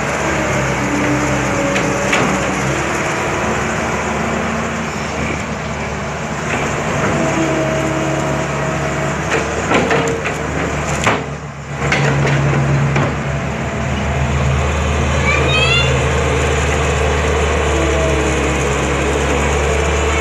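Diesel engine of a Caterpillar E120B excavator running hard, its pitch shifting up and down, with a few sharp knocks about halfway through.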